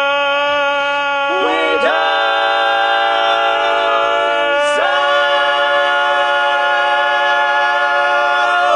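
Barbershop quartet of four men singing a cappella in close harmony, holding long sustained chords. The chord moves about a second and a half in and again about five seconds in.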